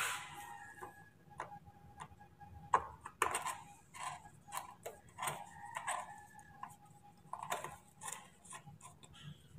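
A screwdriver tightening a metal hose clamp on a small drain tube, making scattered small metallic clicks and ticks at an uneven pace.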